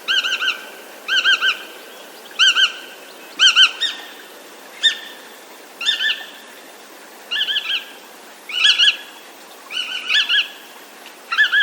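Bar-tailed godwit calling: a short clipped call of two or three quick notes, repeated about ten times at roughly one call a second.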